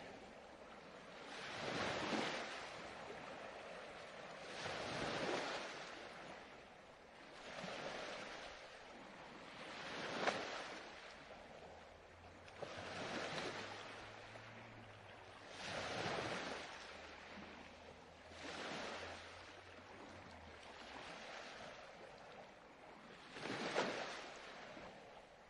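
Recorded ocean surf, waves washing in and drawing back in a slow rhythm, a swell about every two to three seconds.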